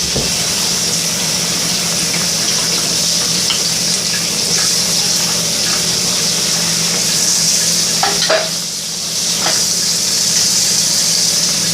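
Tap water running steadily onto a frozen fidget cube to thaw it, as an even hiss. A few faint knocks come near the end.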